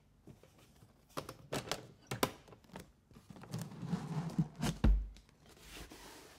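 Spring-loaded metal toggle latches on a ventilation unit's casing snapping open with several sharp clicks. The EPP foam lid then scrapes as it is lifted, and a heavy thud comes just before five seconds in.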